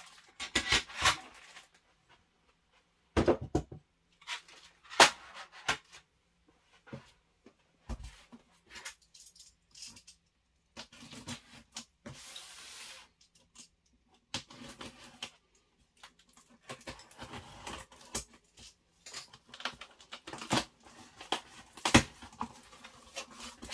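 Handling noise from unpacking a cardboard box: scattered knocks and taps as parts are set down on a desk, with rustling and scraping of cardboard and packaging. About twelve seconds in there is a second-long scraping rustle.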